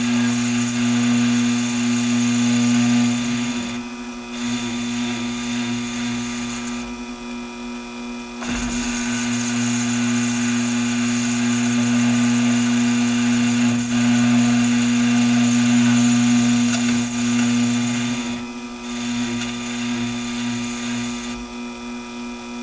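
Taig lathe running with a steady hum while a tool bit turns a 60-degree centre in 304 stainless steel. Over the hum is a high hiss that drops out briefly four times.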